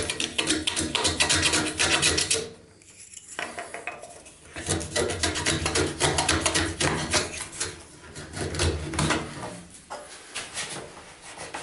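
A hand tool scraping and rasping wood in quick back-and-forth strokes inside a narrow groove, in two spells, the second starting about four and a half seconds in. Lighter scrapes follow near the end as a wooden piece is pushed into the groove.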